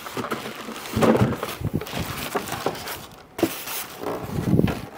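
Styrofoam packing and other packaging being handled and pulled away during an unboxing: irregular rustling and scraping with a few knocks.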